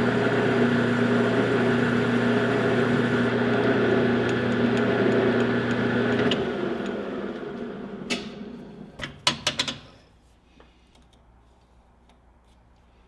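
Metal lathe running with a steady motor hum, then switched off about six seconds in and winding down to a stop, with a few sharp clicks and knocks as it stops, then quiet room tone.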